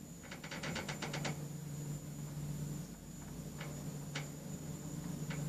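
Lift running between floors: a steady low hum, with a quick run of about ten mechanical clicks in the first second and a few single clicks later.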